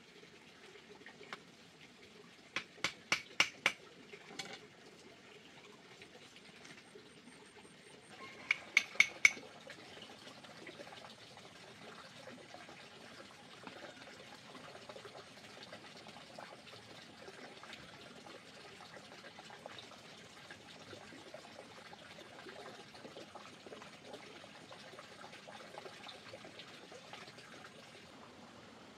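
Two quick runs of sharp, ringing knocks, four or five strikes at a time at about four a second, roughly three seconds in and again about nine seconds in. Steady rushing noise continues after the second run.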